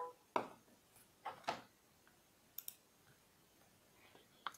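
A few faint, separate clicks and taps from handling a small action camera and its micro-USB cable on a desk, the first with a brief tone.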